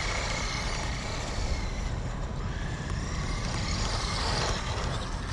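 WLtoys 12429 RC buggy's 550-class electric motor and drivetrain whining as the car drives on asphalt, over a steady hiss of tyre and road noise. The whine drops in pitch about halfway through and rises again near the end as the throttle changes.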